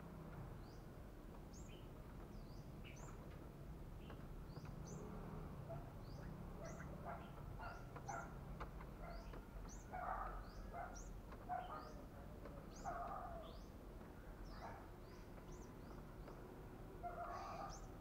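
A caged wild-caught tailorbird giving short, sharp chirps that sweep upward, about once or twice a second. Lower, rougher bursts come in the middle and again near the end.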